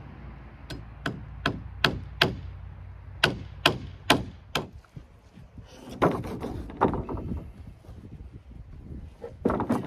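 Hammer driving nails into wood: a run of five strikes, a short pause, then four more, about two to three blows a second. A few duller knocks of timber follow near the middle and end.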